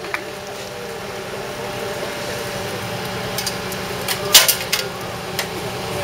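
Engine of the crane lifting the crossing barrier arm, running steadily. A few sharp clanks sound over it, the loudest about four and a half seconds in.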